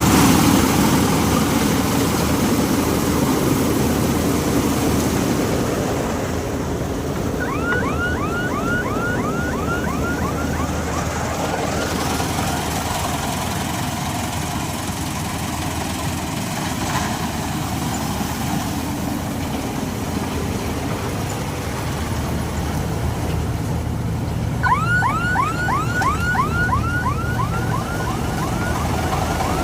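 Combine harvester running with steady, loud machine noise. Twice, a rapid string of falling high chirps, about three a second, sounds over it for a few seconds.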